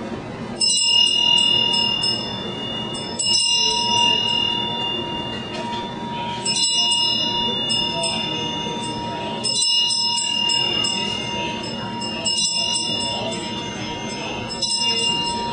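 Bell chimes struck six times, about every three seconds, each strike ringing on in several high tones over background music.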